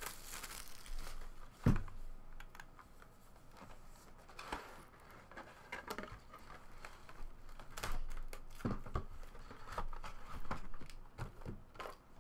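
Cellophane shrink wrap crinkling and a cardboard trading-card box being handled and opened: scattered crinkles, taps and rustles, with a sharp knock about two seconds in.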